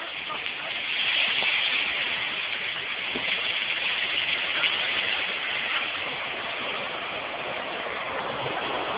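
Steady rushing noise of a landslide, soil and debris sliding away from a railway embankment, swelling slightly about a second in.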